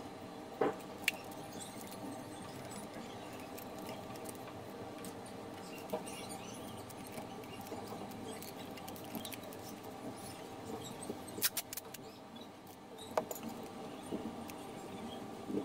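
Faint rustling and pressing of a paper stencil being smoothed by hand onto a skateboard deck and taped down with masking tape, with a few sharp clicks among it, over a steady hum.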